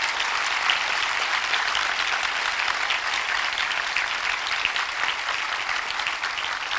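Audience applauding, many hands clapping in a dense, steady patter that eases slightly near the end.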